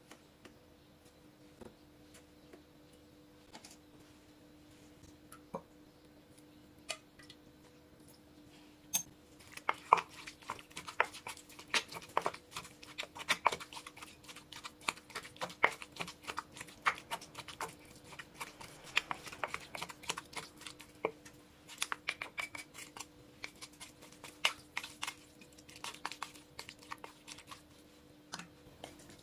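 A wooden pestle pounds eggplant, chillies and seasonings in a clay mortar. The first several seconds hold only a few scattered taps; from about ten seconds in, quick knocks and wet dabs come several a second until near the end.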